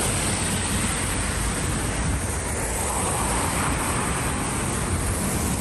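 Steady noise of road traffic on a city street.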